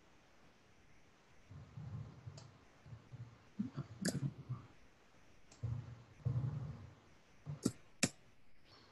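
Computer mouse clicking several times, sharp separate clicks with the loudest two close together near the end, as on-screen sliders are dragged; some low muffled sounds in between.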